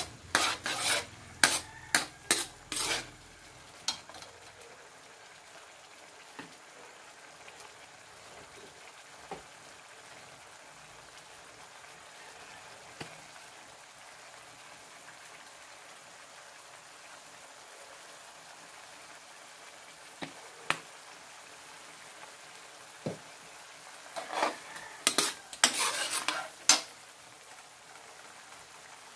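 Metal spatula scraping and clanking against a wok while stirring a mushroom and tofu stir-fry, in two bouts at the start and near the end, with a few single taps between. A steady soft sizzle of the simmering sauce runs underneath.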